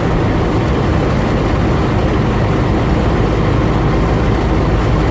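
Engine running with a steady, loud low rumble.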